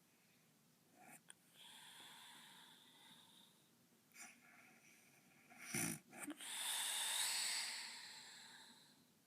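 A woman snoring in her sleep: a long breath, then a short burst a little before six seconds in, followed by a second, louder and longer snoring breath that fades away.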